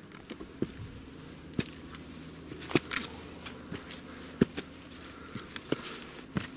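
Footsteps of a hiker climbing a steep, rocky mountain path: irregular crunches and knocks, one or two a second.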